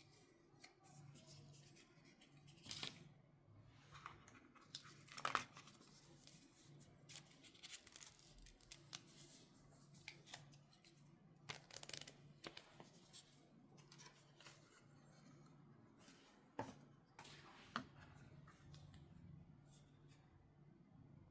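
Quiet unboxing handling sounds: scattered sharp clicks and taps with short papery scrapes and tearing of packaging, over a faint steady low hum.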